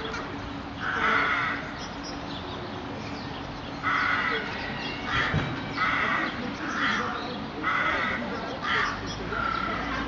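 A bird calling repeatedly, about eight short calls spaced roughly a second apart. A low rumble comes in near the end.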